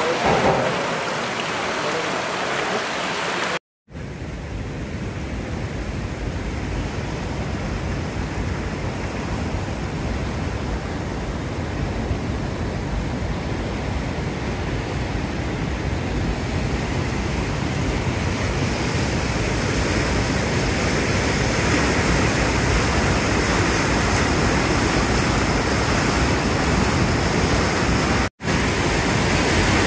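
Fast-flowing floodwater rushing steadily, slowly growing louder, broken by two short silent gaps, one a few seconds in and one near the end.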